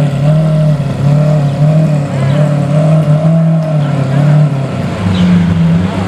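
Lamborghini Aventador SV's 6.5-litre V12 running at low revs as the car crawls away in traffic, a steady deep drone that rises a little in pitch near the end.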